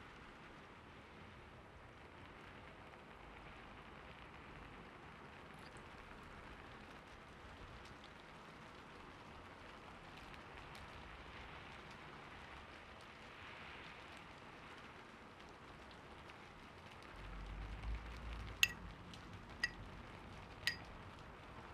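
Faint, steady hiss with scattered light ticks. Near the end comes a low rumble and three sharp clicks about a second apart.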